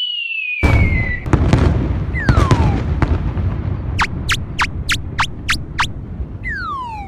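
Cartoon sound effects: a falling whistle, then a long rumbling blast with sharp cracks, another short falling whistle, and a quick run of about eight snaps, like a fireworks or explosion effect.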